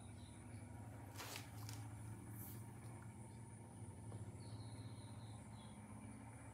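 Quiet room tone: a low steady hum with a faint high whine, two brief soft swishes a little after the start, and a faint thin chirp about four and a half seconds in.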